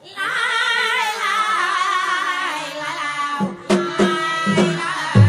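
A song: a high solo voice sings a long, wavering melismatic line, then about three and a half seconds in, drums and bass come in with a steady beat.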